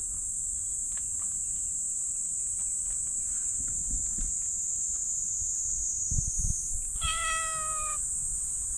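A cat gives one drawn-out meow, about a second long and falling slightly in pitch, near the end, drawn out of it by having its lower back tapped. A steady high-pitched hiss runs underneath.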